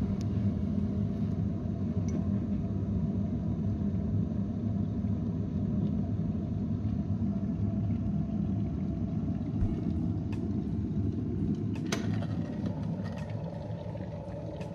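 Champion electric kettle coming to the boil: a steady low rumble of water heating, with a single sharp click near the end as the rumble begins to ease.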